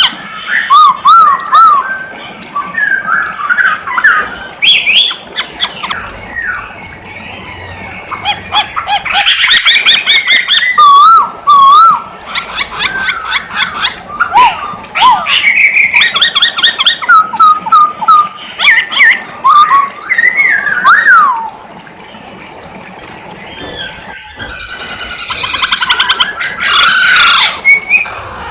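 Poksay hongkong (masked laughingthrush) in full song: a continuous run of loud, varied whistled phrases with slurred up-and-down notes and fast chattering trills. Near the end comes a harsher, denser stretch of chatter.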